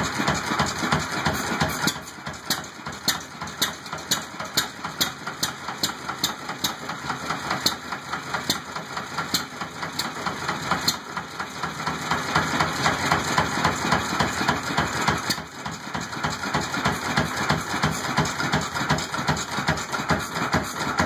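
McCormick-Deering Model M 1½ hp hit-and-miss engine running, a fast pulsing beat with sharp metallic clicks about twice a second through the first half. Its pace and loudness change a few times.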